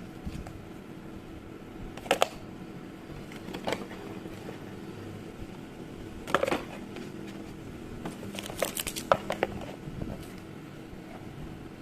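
Scattered handling clicks and taps, with a quick cluster of them about two-thirds of the way through, over a steady low hum.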